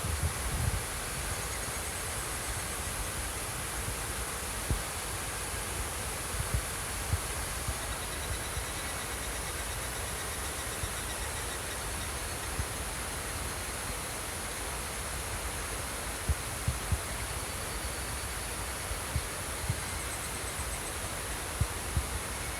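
Steady rush of flowing water, with insects trilling over it in a high, continuous buzz and fainter pulsing trills. A few soft low knocks come through now and then.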